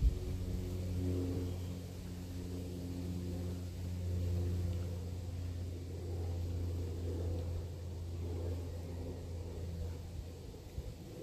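A steady low engine hum, with a few higher tones that fade out about halfway through.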